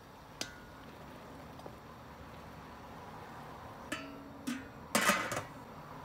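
A metal pot lid going onto a large metal pot of cooking peppers: a small tap early on, then a brief ringing clink near four seconds and a short clatter about five seconds in as the lid settles.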